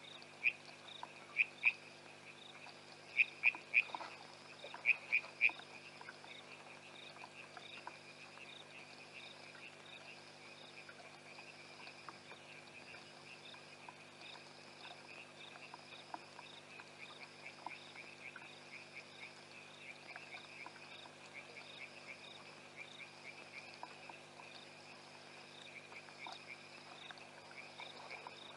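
Night chorus of frogs calling at a waterhole. Sharp clicking calls come in loud clusters over the first six seconds and go on more faintly after that, while a higher pulsed call repeats about once a second, over a low steady hum.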